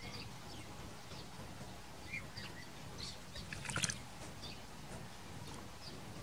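Small birds chirping in short, scattered calls over a steady outdoor hiss, with one brief louder burst of noise a little past the middle.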